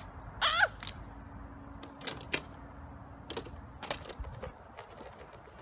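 Irregular clicks and rattles from a small homemade wheeled board on rough asphalt, with a brief high cry about half a second in.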